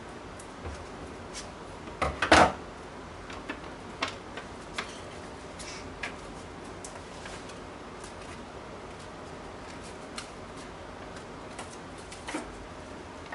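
Scattered small knocks and clicks over a steady background hiss, the loudest a short cluster of knocks about two seconds in and a softer one near the end.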